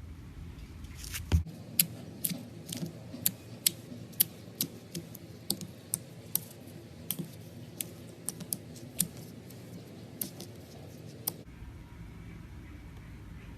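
Gold metallic slime being squeezed and worked by hand, giving sharp irregular clicking pops, about one or two a second, over a soft steady squishing, the clicks stopping a little before the end.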